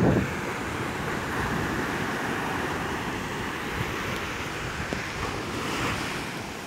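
Waves breaking and washing up a sandy beach in a steady rush, with wind blowing.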